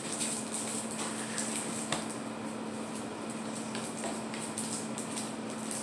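Faint sticky clicks and small ticks of homemade slime being picked and pulled off fingers, with one sharper tick about two seconds in, over a steady low hum.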